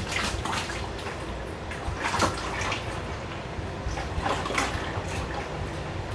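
Engine oil pouring from a tipped 55-gallon drum into a bucket, splashing and glugging unevenly.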